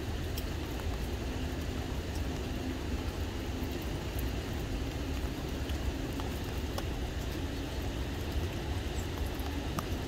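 Light rain with scattered drops ticking over a steady low rumble, and a faint hum from about a second in to about six seconds.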